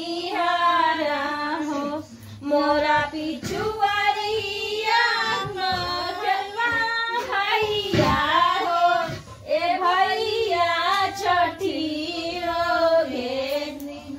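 A woman singing a Chhath devotional folk song in a high voice, long wavering held notes in phrases broken by short pauses.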